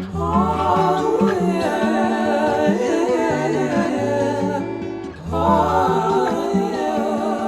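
Background music: a gospel song with wordless sung vocals over a bass line.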